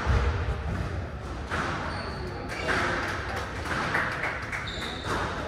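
Echoing sounds of a glass-walled squash court: a thump right at the start, then a steady hum of the hall with a couple of short high squeaks and faint, indistinct voices.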